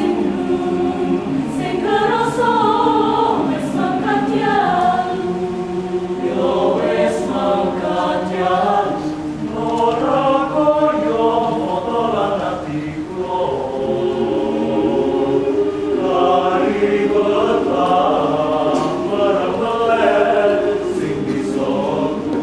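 Choir singing a cappella in several parts: sustained chords with voices moving against each other, no pause.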